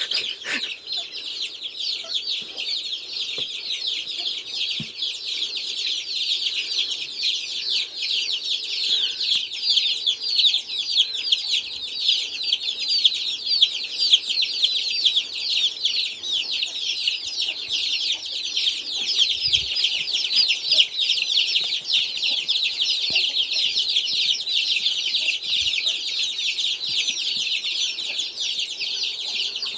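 A brood of chicks peeping without pause, many short, high, falling cheeps overlapping into a dense chorus.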